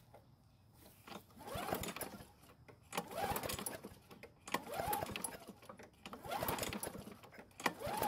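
Pull-cord cranking of a lawn mower's Briggs & Stratton engine, about five pulls roughly a second and a half apart, each a short whirring spin that rises and dies away. The engine never fires, not even a cough: a dead no-start.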